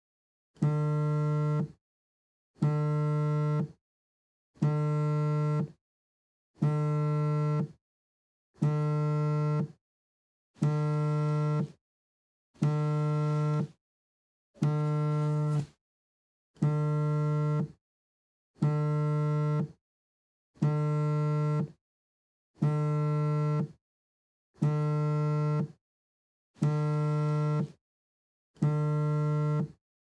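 Mobile phone vibrating in the pattern of an incoming call: a low buzz about a second long, repeated every two seconds, fourteen times.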